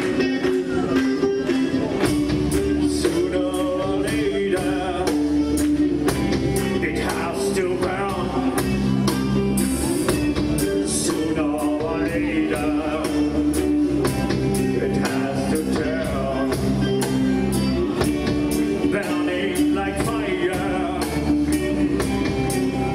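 Background music: a song with singing over guitar and a steady beat.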